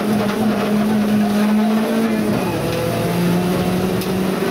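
Rally car engine at high revs, heard from inside the cabin during a stage run, with road and tyre noise. The engine note climbs slightly, falls away about halfway through, then pulls steadily again at a lower pitch.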